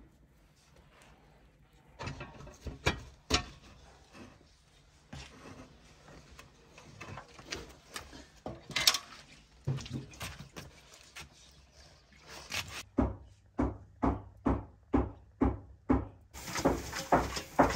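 Bakers working at a large walk-in clay tandoor: scattered knocks and scuffs, then a regular run of sharp slaps or knocks, about two to three a second, through the last few seconds.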